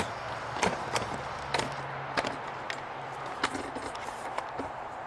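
A series of light, irregular clicks and knocks, roughly one every half second to a second, over a faint low hum that stops about three seconds in.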